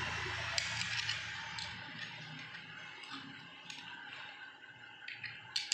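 Scattered light clicks and taps of pig tusks being handled, with a quick cluster of clicks near the end, over a steady background hiss that fades after about two seconds.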